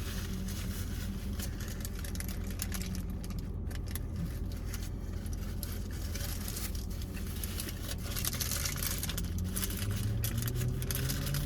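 Car engine running with a steady low hum, with short clicks and rustles of eating over it. A few seconds before the end a rising hum joins in.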